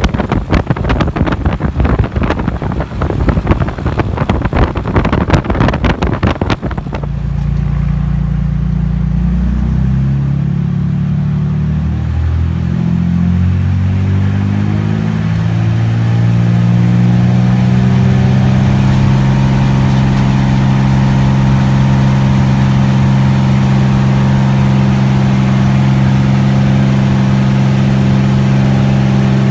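Propeller engine of a T-34 Mentor droning, its pitch wavering for several seconds and then holding steady. For about the first seven seconds a loud crackling wind buffet covers it.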